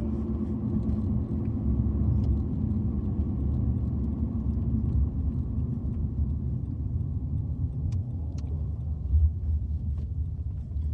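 Car running, a steady low rumble of engine and road noise heard from inside the cabin, with a few faint small clicks.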